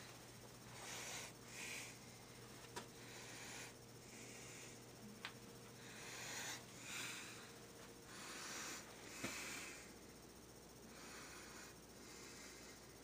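Faint breathing close to the microphone, soft in-and-out breaths about every two seconds, with a few light clicks of the camera being handled.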